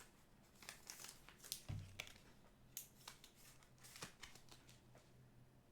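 Faint rustles and soft clicks, about a dozen scattered through, of trading cards being handled, over a faint low hum.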